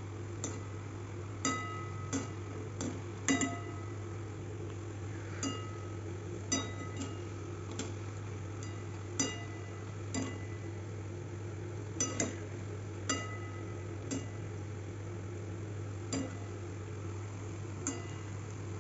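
Wire-mesh skimmer clinking against a steel kadhai while spinach pakoras deep-fry in hot oil. The strikes come at irregular intervals, roughly one a second, each with a short metallic ring, over a faint frying sizzle and a steady low hum.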